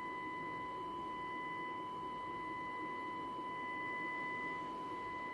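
Unitra Alicja R-603 radio's loudspeaker playing the steady demodulated FM test tone from a signal generator, with faint overtones and background hiss. The overtones are the distortion that shows while the FM IF filter is being tuned.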